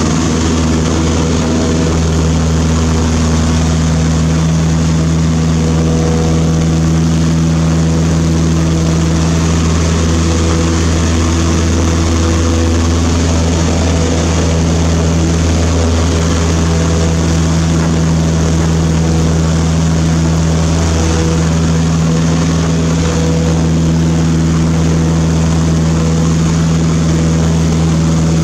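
Cessna 152's four-cylinder Lycoming O-235 engine and propeller running steadily in flight, heard inside the cabin as a constant low drone with a steady hiss.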